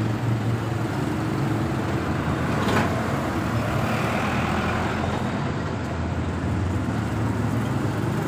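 Steady rushing of a blowtorch flame, used to heat a soldering iron for tinning a radiator leak, with a brief hiss about three seconds in.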